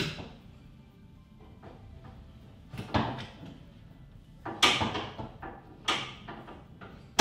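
A gas strut on a Sleep&Store bed lift being worked and snapped onto its ball stud: several separate sharp clicks and knocks of metal parts, the loudest near the very end, over background music.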